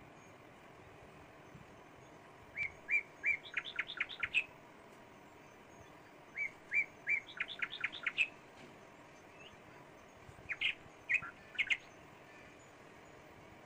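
A bird singing: the same short phrase twice, a few seconds apart, each a few spaced chirps that speed up into a quick run of higher notes, then a few more scattered chirps near the end.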